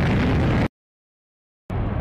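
Jet engine noise from a pair of F-16 fighters flying away, a loud, steady rush that cuts off abruptly less than a second in. After about a second of dead silence, a duller jet rush returns near the end.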